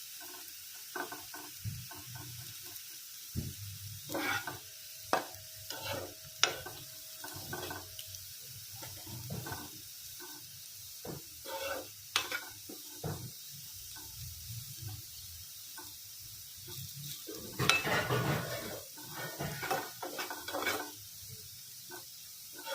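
Sliced onions sizzling as they deep-fry in hot oil until brown, with frequent scrapes and clicks of a spoon stirring them against the pan. The stirring gets busier near the end.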